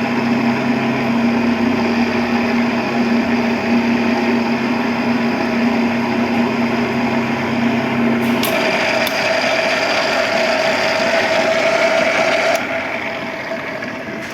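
Electric pipe-threading machine running, cutting a thread on an iron pipe: a steady motor hum that shifts to a higher tone about eight seconds in, with a few clicks, then drops and fades away near the end.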